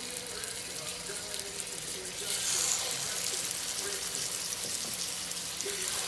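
Raw ground-beef hamburger patties sizzling and crackling in hot oil in a frying pan. The sizzle gets louder about two seconds in, as another patty is laid in.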